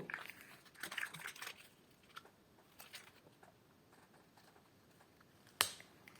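Faint clicks and rustles of a flexible slug fidget toy being handled, with one sharper click near the end.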